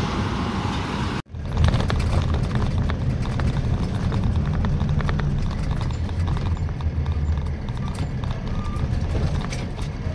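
Truck running on the road, heard from inside the cab: a steady low engine and road rumble with quick, irregular rattling clicks from the shaking cab and its fittings. The sound cuts out for an instant about a second in.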